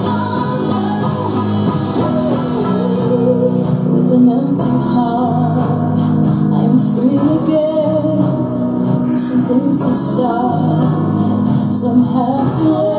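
Pop song with singing and guitar played loudly through a mini hi-fi stereo's speakers.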